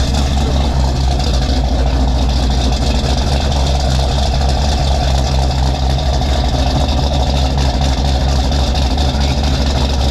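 Classic car engine idling steadily through a newly built custom exhaust, a deep, even rumble with no revving.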